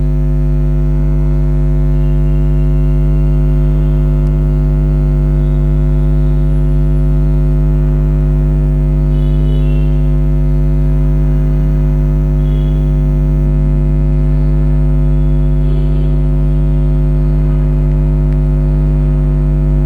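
Loud, steady electrical mains hum with a stack of overtones, unchanging throughout.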